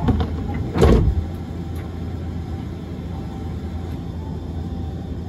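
Sliding doors of a Hiroshima Electric Railway 1000 series Green Mover LEX low-floor tram closing with a single loud thud about a second in, heard from inside the car. After that the stopped tram gives a steady low hum.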